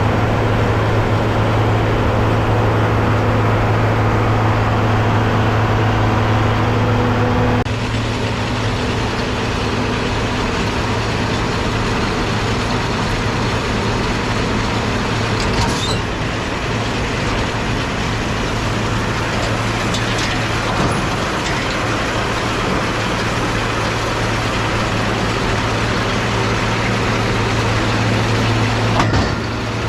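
John Deere 4230 tractor's six-cylinder diesel engine running steadily under load while pulling a round baler, a constant low hum over mechanical noise. The sound changes abruptly about eight seconds in.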